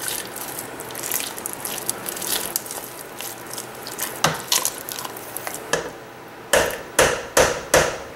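Potato masher working boiled potatoes in a stainless steel pot: soft squishing and scraping with scattered clicks, then, about six and a half seconds in, sharp regular knocks of the masher against the pot, about two a second.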